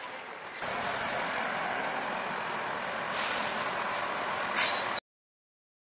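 Street noise at a bus stop with a bus idling at the kerb. A hiss rises about three seconds in, and a short, loud air-brake hiss follows near the end. The sound then cuts off abruptly.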